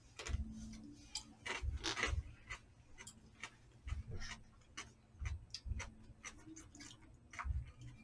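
Metal chopsticks and a spoon clicking and scraping against plastic takeout trays while food is picked up: many light, irregular clicks.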